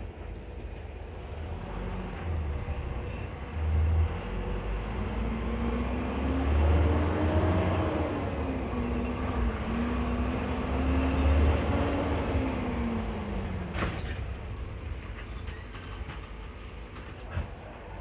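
Cummins ISBe diesel engine of an Agrale MA 12.0 city bus running, its pitch rising, dropping back once, climbing again and then falling away. A brief sharp sound comes near the end.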